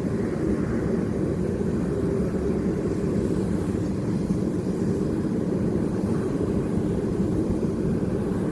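Forge running with a steady roar while a steel hammer drift heats toward critical temperature for quenching.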